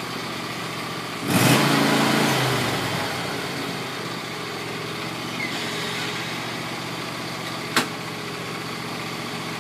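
John Deere ride-on lawn mower engine running steadily, with a louder surge about a second in that fades away over the next second or two. A single sharp click comes near the end.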